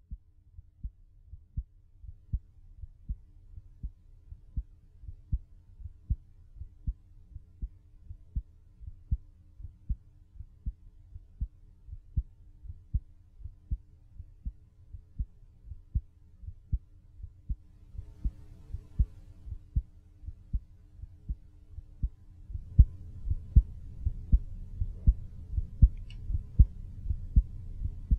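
Human heartbeat picked up through the air by a studio microphone about half a foot from the body: steady, regular low thumps over a faint hum. Everything grows louder about three-quarters of the way through, because the recording level was being raised.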